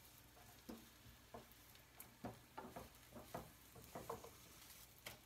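Corn tortillas frying faintly in a little oil in a hot skillet: a soft sizzle, with light, irregular taps of a spatula against the pan as the tortillas are turned.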